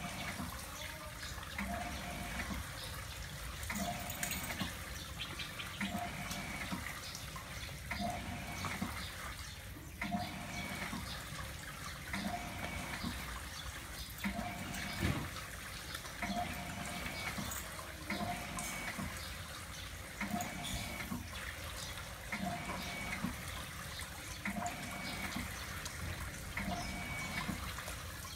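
Shower head running steadily, its spray of water splashing onto a wet dog and into a plastic tub.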